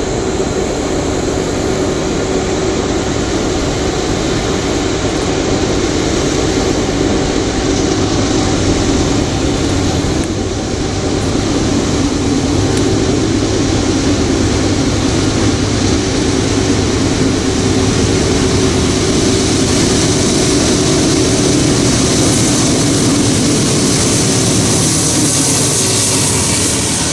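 Norfolk Southern freight train passing close by: diesel locomotives running with a steady drone, giving way toward the end to a rising hiss of freight cars rolling on the rails.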